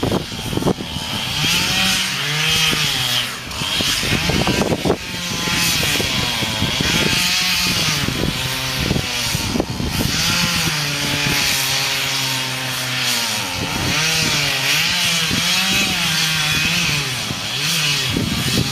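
Chainsaw cutting into wood at full throttle, its engine pitch sagging under load and rising again over and over.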